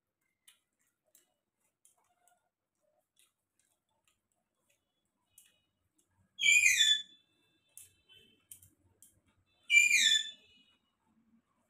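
A bird calls twice, about three seconds apart, each a short, loud call of quickly falling notes. Faint clicks of a hand eating from a steel plate come in between.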